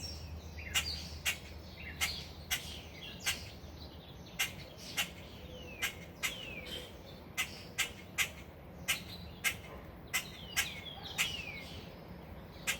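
Adult bird, which the owner takes for a starling, giving short calls that fall in pitch, a few at a time, among sharp clicks repeated about twice a second.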